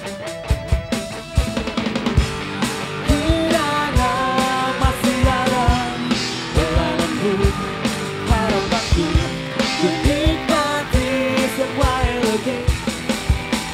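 Live rock band playing a song: electric guitars and a drum kit keeping a steady beat, with a vocalist singing from about three seconds in.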